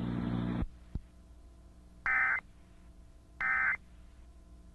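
Emergency Alert System end-of-message data bursts: short, harsh warbling tone bursts of digital code sent over FM radio, two about 1.3 seconds apart with a third starting at the very end, signalling that the alert is over. Before them a steady hum cuts off about half a second in, followed by a single click.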